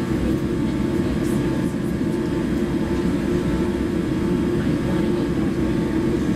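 Steady low rumble of a jet airliner's cabin with its engines idling, with a faint thin hum above it.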